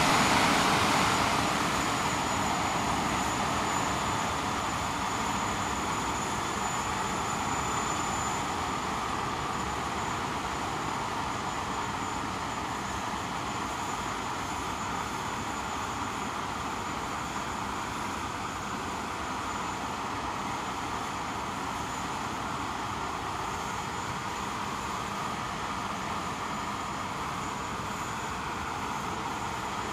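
English Electric Lightning's twin Rolls-Royce Avon turbojets dropping back from high power over the first few seconds, then running steadily at a lower setting, with a thin high-pitched whine over the rush of the exhaust.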